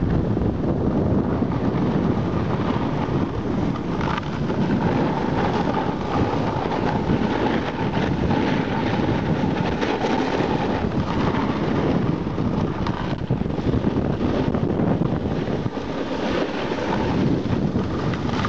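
Wind rushing over the camera microphone while riding a snowboard downhill, with the board sliding and scraping over the packed snow. A faint steady whine runs through the middle of the run.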